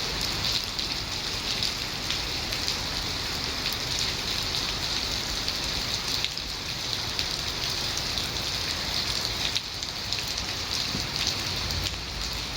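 Steady rain falling, with many separate drops ticking through a constant hiss.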